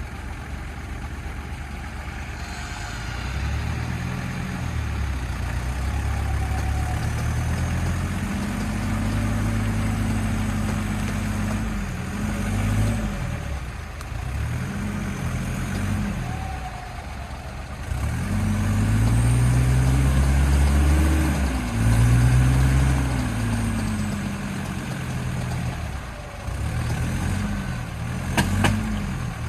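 Off-road SUV engine revving hard and easing off in repeated surges, as on a vehicle working its way up and out of a creek. The loudest surge comes about two-thirds of the way through, and there is a sharp knock near the end.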